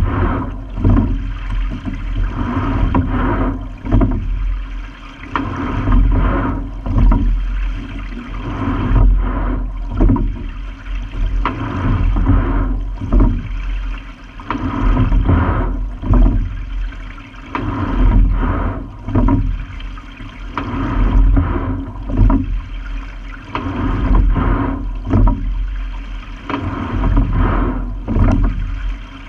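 Single racing scull being rowed: water rushing and gurgling along the hull, surging with each stroke about every two and a half seconds. A sharp knock comes with each stroke.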